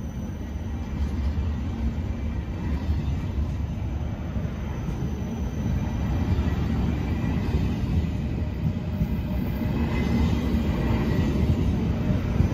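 Railjet passenger coaches rolling past: a steady rumble of wheels on rail that slowly grows louder, with a faint high whine joining near the end.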